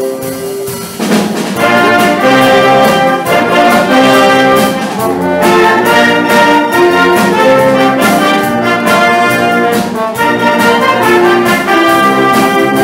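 Concert wind band playing live, brass prominent over woodwinds and percussion. A softer held chord gives way about a second in to a louder full-band passage with repeated percussion hits.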